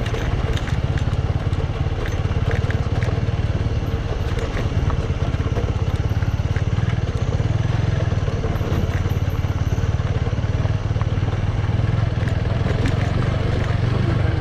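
Motorbike engine running steadily under way on a rough off-road track, with scattered rattling clicks and knocks over a constant low rumble.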